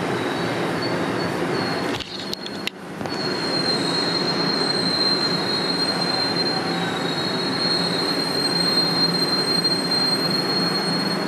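Toronto Rocket subway car running on the track, heard from inside the car: a steady rumble with a steady high-pitched wheel squeal that starts about three seconds in and holds. Just before the squeal the sound dips briefly, with a few sharp clicks.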